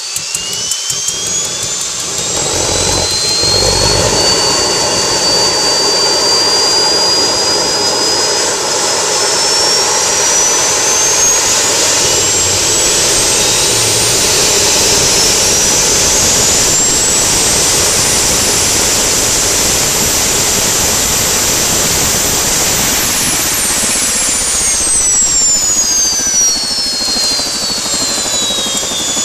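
Small gas turbine engine, a Harrier starter/APU unit, starting up. Rapid ticking in the first second, then a brief low rumble as it lights off about three seconds in. It spools up with a whine that climbs steadily for about twenty seconds, then the whine drops back down over the last few seconds.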